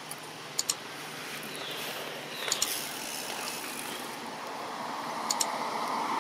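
Computer mouse-click sound effects, three quick double clicks a couple of seconds apart, over a steady outdoor background hiss with a faint swish near the middle.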